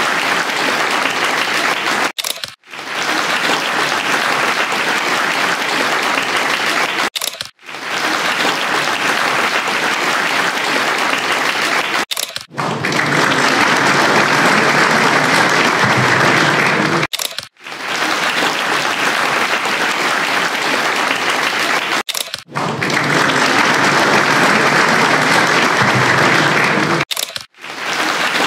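Audience applauding, continuous and even, broken by short gaps about every five seconds.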